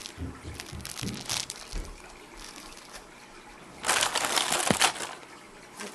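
Thin plastic bag crinkling as it is handled, with faint rustles at first and a loud burst of crinkling about four seconds in.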